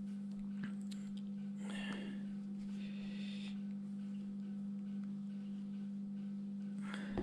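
A steady low hum on one unchanging pitch, with two faint soft hissing sounds about two and three seconds in.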